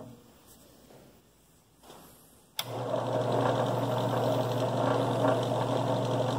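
Harbor Freight 8-inch 5-speed bench drill press clicking on about two and a half seconds in, then its motor and belt-driven pulleys running with a steady hum. The pulley set screws have just been tightened and the belt tensioned, the fixes for factory ringing and clacking.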